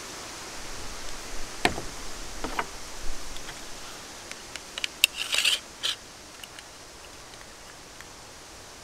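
Hand handling of a cordless jigsaw's blade clamp as the blade is taken out and fitted: a few sharp clicks and rattles, then a short burst of metal scraping about five seconds in. The saw's motor is not running.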